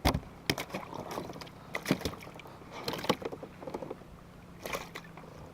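Irregular knocks and clatter of gear and a caught bass being handled in a fishing kayak, a sharp knock just at the start and several more spread across the next few seconds.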